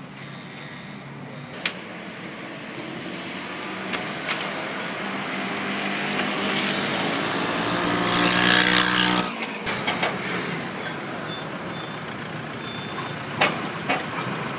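A heavy motor vehicle's engine passing: it grows steadily louder, is loudest with a hissing burst about eight to nine seconds in, then drops away, with a few sharp clicks.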